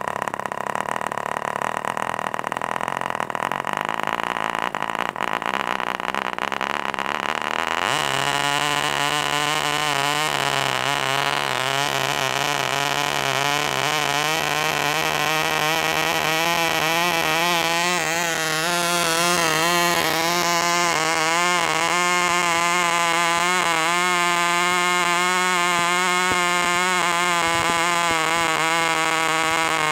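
Cox .049 glow-plug two-stroke model engine of a Black Hawk tether car running through a modified muffler and sidepipe. It starts at a high, steady pitch; about eight seconds in the note drops to a lower pitch that wavers slightly and holds.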